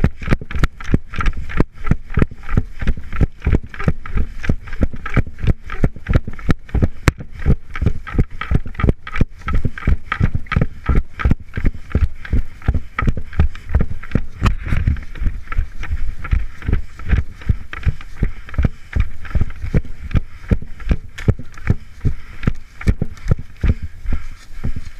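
Footsteps of a person walking steadily, about two steps a second, landing as heavy thuds close to the microphone over a constant rustle of movement.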